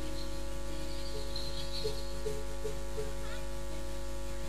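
Steady electrical hum and buzz from a public-address sound system, several fixed tones over a low drone, with faint crowd noise.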